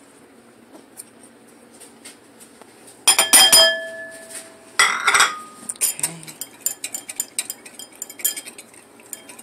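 Two loud, ringing clinks against a ceramic bowl about three and five seconds in, then a wire whisk rattling against the bowl in quick strokes, beating cornstarch into cooking liquid to make a gravy slurry.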